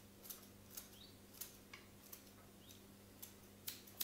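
Herb scissors snipping sage leaves: a string of small, sharp snips, roughly two a second, quiet.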